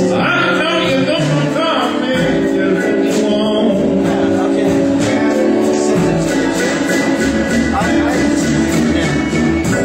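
Live blues band playing, with a harmonica played into a handheld microphone carrying the lead in long held and bent notes.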